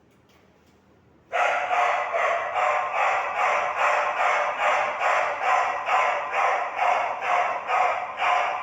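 Fire alarm horn sounding, switching on abruptly about a second in and pulsing evenly about twice a second.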